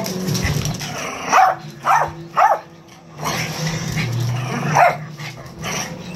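Small dog barking during rough play: three sharp barks in quick succession about a second and a half in, and one more near the end.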